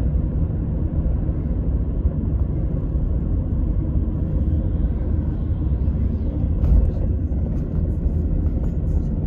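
Steady low rumble of a road vehicle driving along, with engine and tyre noise heard from inside the vehicle.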